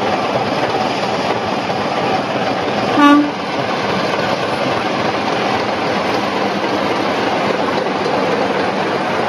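Sulzer Type 2 (Class 24) diesel-electric locomotive's six-cylinder Sulzer engine idling steadily, heard close up beside the engine-room grilles while the locomotive stands waiting. About three seconds in, a brief horn toot sounds over it.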